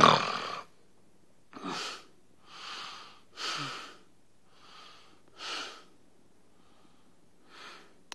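A man's loud snorting snore, followed by a run of short wheezy breaths about one a second that grow fainter.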